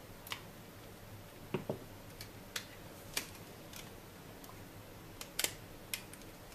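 Faint, irregular small plastic clicks and taps, about ten in all, from handling an N scale model locomotive: a plastic tool prodding wires into place and the body shell pressed onto the chassis. The loudest click comes just past five seconds in.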